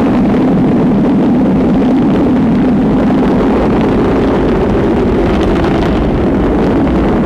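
Rocket engine at launch: a loud, steady rushing noise, strongest low down, that comes in suddenly and stays level.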